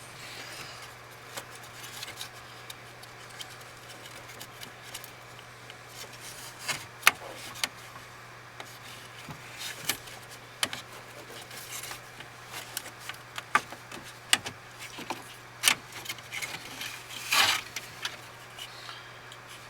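Scattered clicks, taps and rubbing from hands handling plastic connectors and dash parts, with a longer scrape near the end, over a steady low hum.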